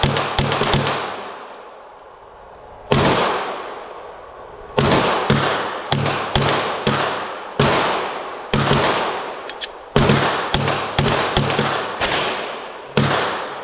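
Pistol gunfire at an indoor range: a Sig Sauer P320 RX full-size 9mm fired in quick strings of shots about half a second apart, each shot echoing off the range walls. More shots from neighbouring lanes are mixed in.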